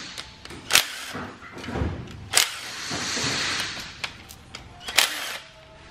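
Cordless impact driver backing out the small bolts of a Mazda 13B rotary engine's oil pump, running in several short bursts of rattling hammering.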